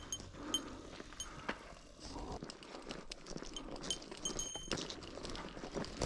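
A small bear bell on a walking hiker's pack jingling with his steps, a few short ringing chimes at uneven intervals over faint trail noise.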